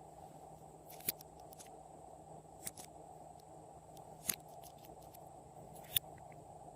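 Slime being mixed and pressed by hand, with sharp pops or clicks about every second and a half over a steady low noise.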